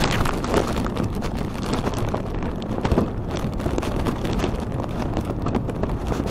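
Wind buffeting the camera microphone while riding in windy rain. A steady low rumble, with many small irregular ticks and clicks over it.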